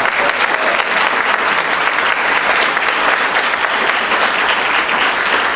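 An audience applauding steadily: many hands clapping at once.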